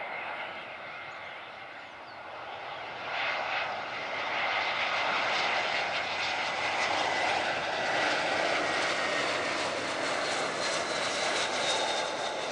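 Airbus A319 jet engines as the airliner comes in to land. The engine noise swells about three seconds in and stays loud. A high whine over it slowly drops in pitch.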